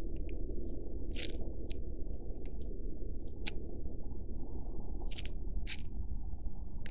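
Dry leaf litter crackling in short, irregular bursts as a water deer forages with its head down right by the camera, over a steady low hiss.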